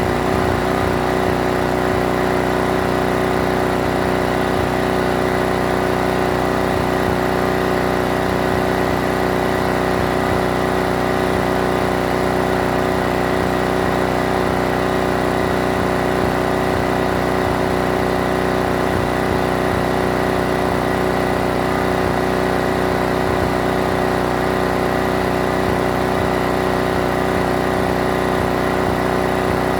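Pressure washer's engine running steadily at one even pitch.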